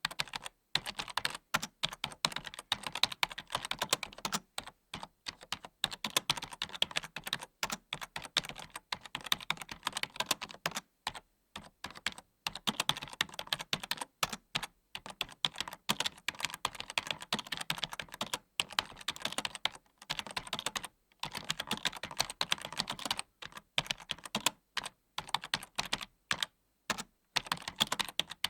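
Typing on a computer keyboard: rapid, irregular key clicks in bursts, with short pauses between runs.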